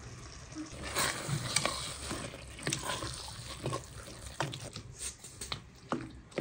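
A spatula stirring wet chopped vegetables in a stainless steel pot, with a wet scraping noise and scattered clicks and taps of the utensil against the pot.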